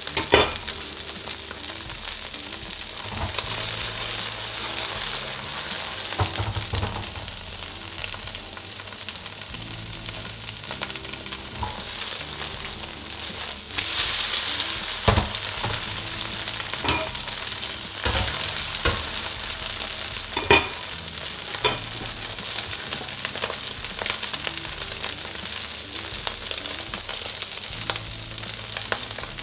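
Egg and wide rice noodles sizzling steadily in hot oil in a wok as they fry to a golden brown. A handful of sharp clicks and scrapes of a metal spatula against the wok are heard, most of them in the second half.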